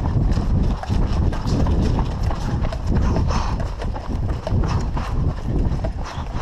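Footsteps on hard ground: a quick, irregular run of knocks and scuffs, with gear jostling against the body-worn camera.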